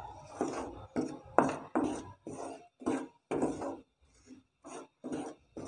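Spoon scraping against a pan in steady repeated strokes, about two a second, as flour and sugar are stirred continuously while roasting in ghee.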